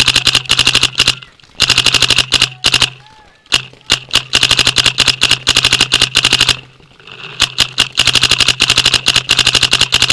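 Paintball marker firing rapid strings of about ten shots a second, broken by three short pauses.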